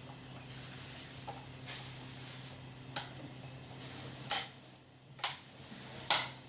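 A series of sharp clicks, faint at first, then three loud ones about a second apart in the second half, over a low steady hum.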